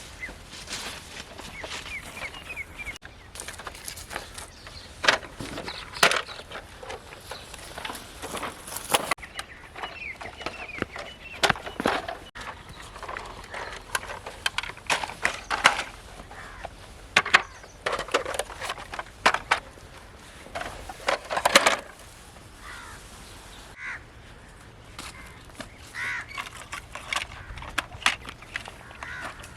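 Irregular sharp clicks and knocks of small toy models being handled and set down, with birds chirping faintly in the background.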